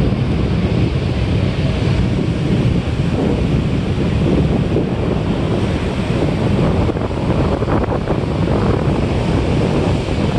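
Wind buffeting the microphone over the steady wash of ocean surf.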